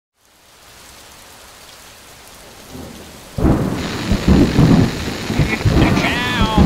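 Thunderstorm: rain hiss fades in, then a sudden loud thunderclap about three and a half seconds in, followed by rolling rumbles over the rain. Near the end a wavering, gliding high tone joins in.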